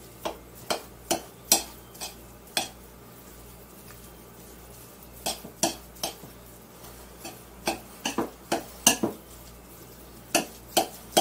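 A utensil stirring a thick rice-and-veggie-sausage boudin mixture in a bowl, clinking and scraping against the bowl in irregular clusters, with a pause of a couple of seconds around three seconds in.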